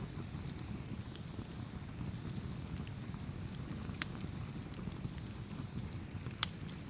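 Wood fire burning, with a steady low rumble and scattered small crackles; one sharp pop stands out about six seconds in.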